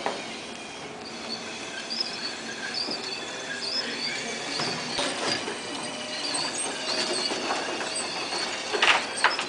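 Small tracked robot driving, its treads and drive running steadily with repeated high squeaks. A few sharp crunches come as it rolls over loose white grit, the loudest near the end.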